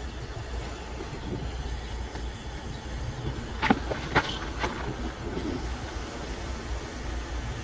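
Soldering torch flame burning steadily, heating copper refrigerant line set pipe, with three sharp metallic clicks about halfway through.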